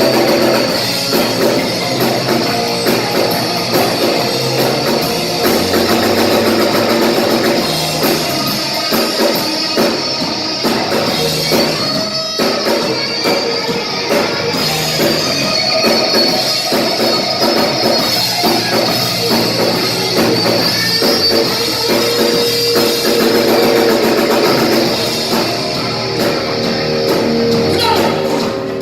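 Rock music with electric guitar and drum kit playing steadily.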